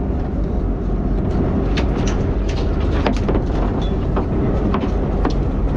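Steady low rumble of wind and boat noise on an open deck at sea, with scattered sharp clicks and ticks.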